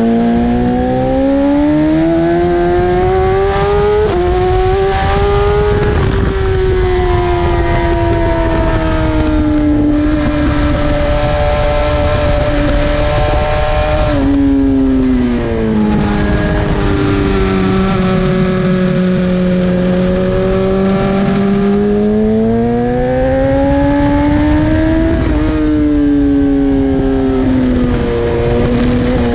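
BMW S1000RR's inline-four engine at racing speed: its pitch climbs hard under acceleration and drops sharply at gear changes, then falls away when slowing before climbing again, several times over.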